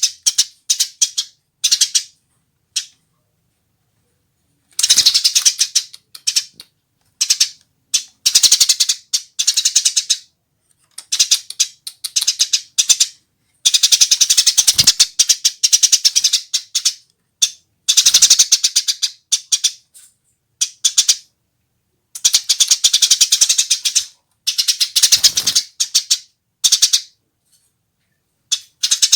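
Female Eurasian tree sparrow chirping in rapid, rattling runs. The bouts last one to three seconds each and come repeatedly, with short silences between.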